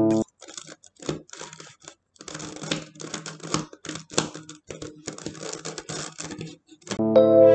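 Plastic 3x3 Rubik's cube being turned quickly by hand, a rapid irregular run of clicks and scrapes as its layers rotate.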